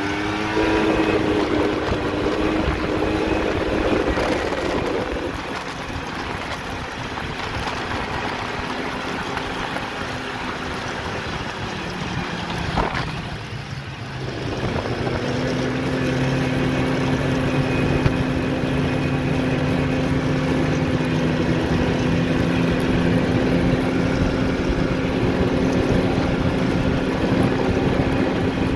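Polaris snowmobile engine running steadily while riding along the trail. About halfway through the engine note drops and the sound dips as the throttle eases off, then it picks back up and holds a steady pitch.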